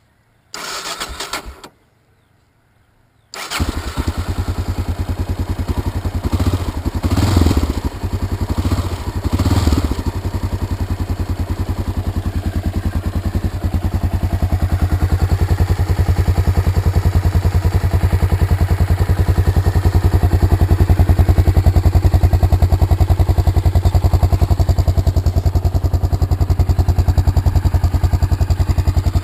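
A warm Honda NX650 Dominator's 644 cc single-cylinder engine, breathing through its original exhaust, is started. A second-long burst of cranking does not catch; the engine fires about three seconds in and takes two short throttle blips. It then settles into a steady idle with an even beat.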